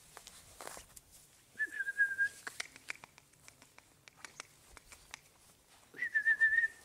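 A person whistling two short, steady notes: one about a second and a half in, and one near the end with a slight warble.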